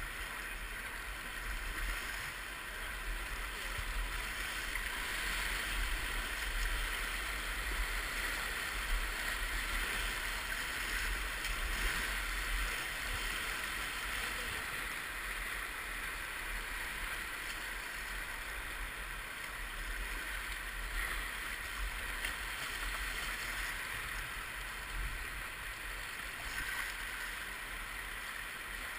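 Steady rush of river rapids: a continuous wash of white water.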